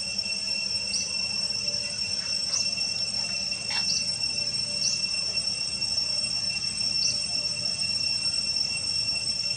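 Forest ambience: a steady high-pitched insect drone, with short high chirps every second or two.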